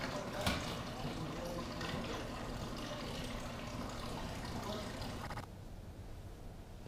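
Steady trickle of water from a tiled indoor wall fountain, with a light knock about half a second in. The trickle cuts off abruptly about five and a half seconds in, leaving quieter room tone.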